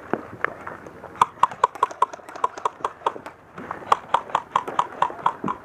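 Paintball marker firing rapid strings of shots, about five pops a second, in two strings with a brief pause a little after the middle.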